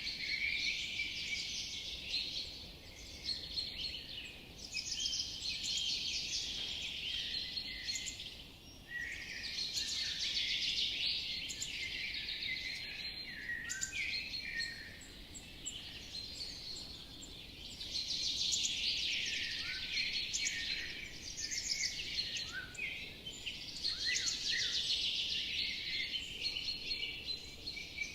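Woodland songbirds singing, several songs overlapping in a dense chorus that swells and eases every few seconds, over a faint steady background hiss.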